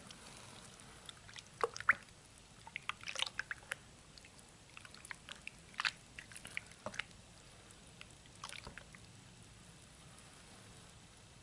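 A hand squishing and lifting stringy glue-and-borax slime in a bowl of watery liquid: irregular wet squelches, drips and small splashes in scattered clusters, dying down for the last couple of seconds.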